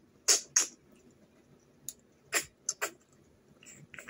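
Short, sharp sucking smacks at the lips as cooked snails are sucked out of their shells: two loud ones near the start and a quicker cluster of three a little past the middle.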